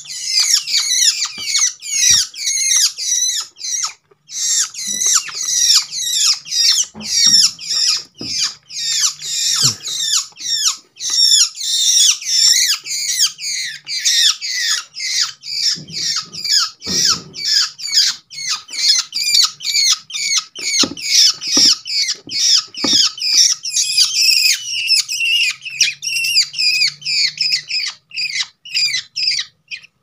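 Fledgling long-tailed shrikes (cendet) giving rapid, harsh begging calls, a steady string of short falling screeches about three a second, typical of young hand-reared birds clamouring to be fed. A few soft knocks sound underneath.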